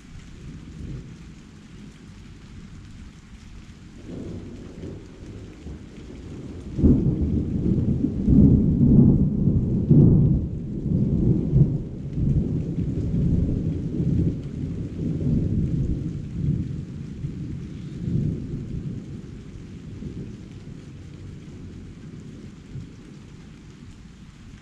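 Thunder: a low rumble swells about four seconds in, turns suddenly loud about seven seconds in, and rolls on, slowly dying away over the next fifteen seconds. Rain falls steadily underneath.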